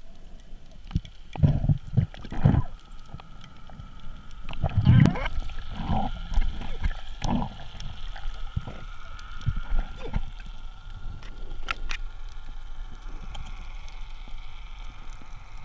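Muffled underwater sound picked up by an action camera in its waterproof housing. Several low thumps come in the first half, with scattered sharp clicks and a faint steady whine in the second half.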